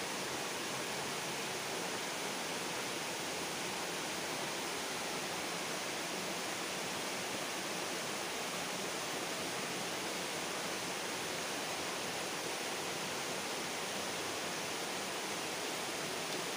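A steady, even rush of running river water.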